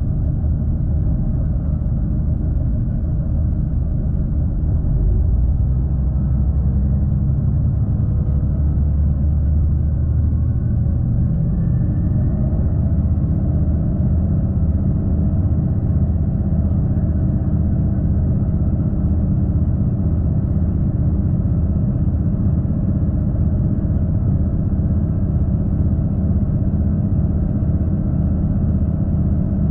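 V/Line regional passenger train running, a steady low rumble of its engine and wheels heard from inside the carriage, growing a little louder about five seconds in.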